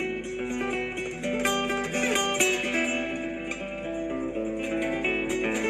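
Acoustic guitar music in a flamenco-tinged style, a quick flow of plucked notes and strums.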